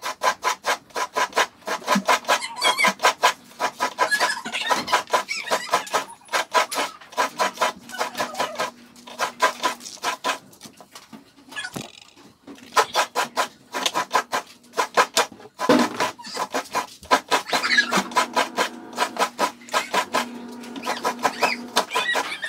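Coconut half being scraped against a kudkuran, the serrated blade of a coconut-grater stool, in quick rhythmic strokes of about four a second, with a short pause about halfway through.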